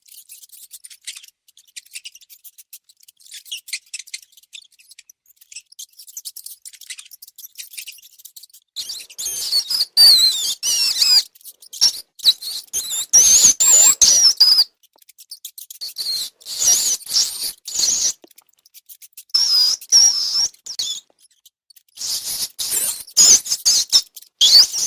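Rats squeaking in repeated high-pitched bursts of quick up-and-down squeals, mixed with small scratching clicks. The first several seconds hold only faint scratching before the squeaking starts.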